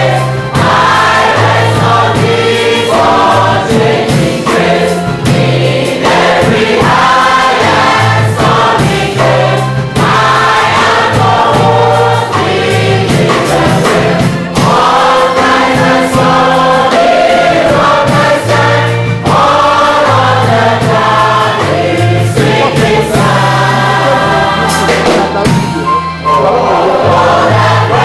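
Congregation singing a hymn together with a band: many voices in unison over a steady bass line and beat.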